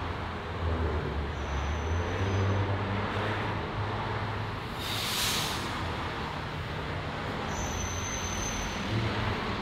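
Road traffic noise: a steady rumble of passing vehicles' engines and tyres, with a brief hiss about halfway through.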